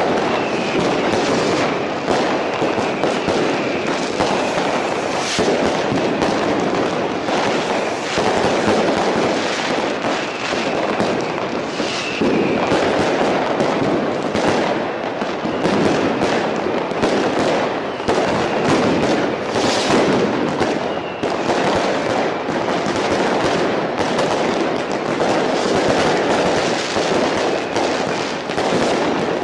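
Dense New Year's Eve fireworks: many bangs and crackles overlapping without a break, with a few high whistles among them.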